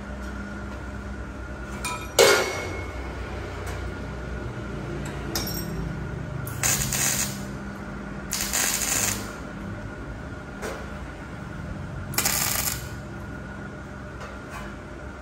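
Metalworking on a steel frame: a sharp metallic clank about two seconds in, then three short rasping bursts of about a second each, over a steady hum.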